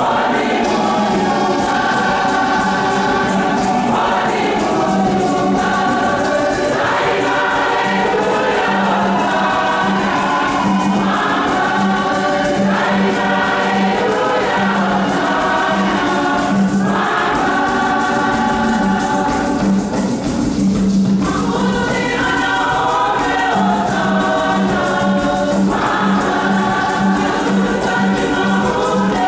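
A choir singing a hymn, with a low note pulsing steadily beneath the voices.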